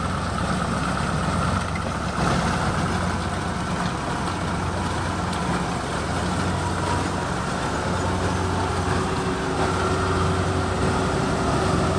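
Kubota DC-70 combine harvester's diesel engine running steadily.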